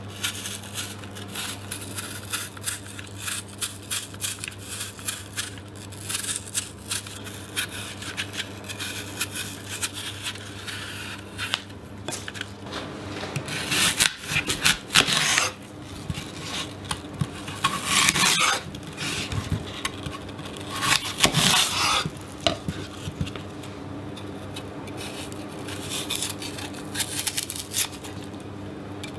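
Kitchen knife peeling an apple in many short scraping strokes, then cutting through the apple onto a wooden cutting board, with a few louder, longer cuts from about halfway through.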